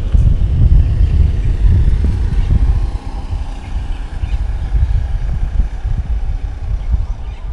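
Strong wind buffeting the microphone: a loud, gusty low rumble that eases somewhat about three seconds in and drops away near the end.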